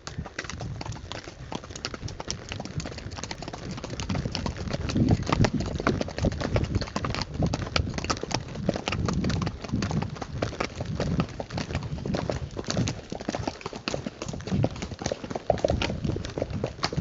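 Hoofbeats of a cantering horse: a continuous patter of hoof strikes, getting louder about four seconds in.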